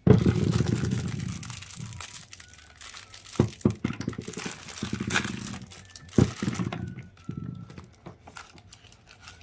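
Handling of toys and plastic packaging: crinkling and rattling, loudest in a burst right at the start, with a few sharp knocks in between.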